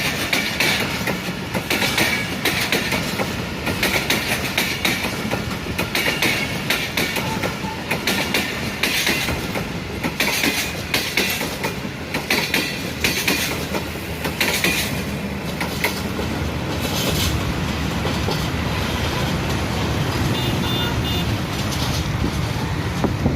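Train wheels clattering over the rail joints in a fast, uneven run of clicks over a steady rumble. The clicks thin out about two-thirds of the way through, leaving a smoother rolling noise.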